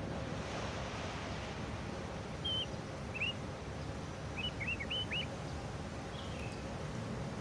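A small songbird chirping: a handful of short, quick high notes about two and a half to five seconds in, over a steady background hiss of outdoor noise.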